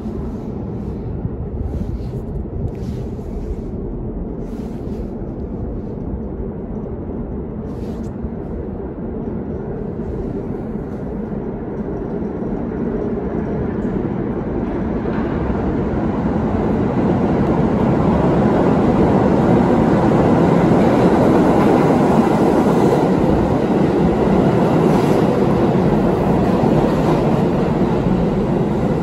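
R68 subway train approaching through the tunnel and pulling into the station: a steady rumble that grows louder from about halfway through and stays loud as the cars roll along the platform. A thin high whine comes in with it as it nears.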